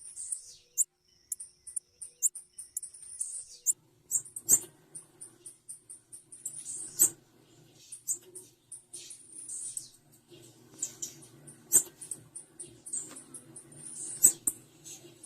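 Female blue-black grassquit (tiziu) calling: a rapid string of short, high-pitched chips repeated over and over. A few sharp clicks stand out, and a low steady hum comes in about four seconds in.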